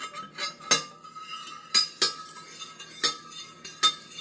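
Slotted stainless steel spoon stirring sugar water in a ceramic dish, clinking against the dish about five times, as the last sugar granules are stirred in to dissolve.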